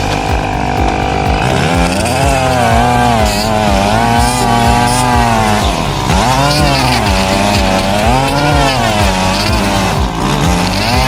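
Petrol lawnmower engine running, its speed rising and falling in slow waves about every two seconds.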